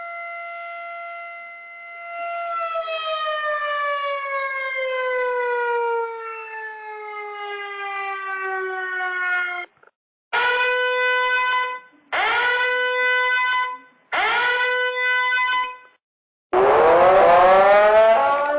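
Siren Head creature sound effect, a siren-like wail. It holds one pitch, then slowly falls and cuts off. Three short tones follow, each sliding quickly up and holding, and a louder rising siren sweep comes near the end.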